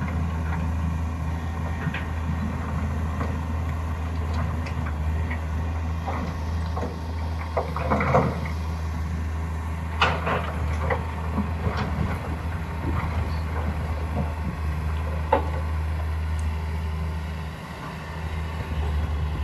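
Hitachi excavator's diesel engine running steadily with a low drone at an open-pit sand quarry while it loads a dump truck. Sharp knocks come now and then, with a short rattle about 8 seconds in.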